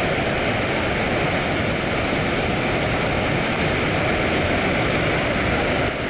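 The Main Falls of Victoria Falls: a steady, loud rush of heavy water pouring over the lip and crashing into the gorge.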